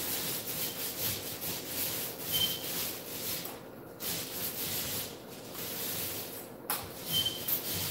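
Mini paint roller rolling wet screen paint onto a wall in back-and-forth strokes, a continuous rough rasping with a few brief breaks.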